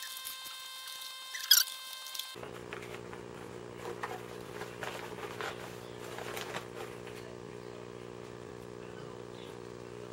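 Scissors cutting into a paper vacuum-cleaner bag, one sharp snip about a second and a half in, followed by faint rustling of the paper as the bag is pulled open. A steady low hum starts suddenly about two seconds in.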